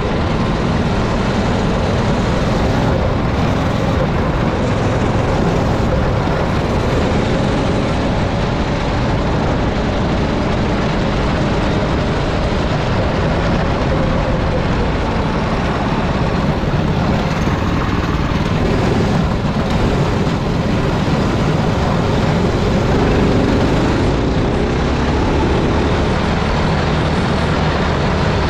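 Kids-class dirt go-kart's small engine running at racing speed, heard from on board the kart, with steady wind and track noise. Its pitch rises and falls through the laps.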